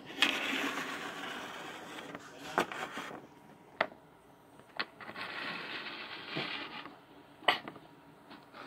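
Plastic toy figurines and paper props being handled and moved on a wooden tabletop: two stretches of scraping and rustling, with four sharp taps as pieces are set down, the last the loudest.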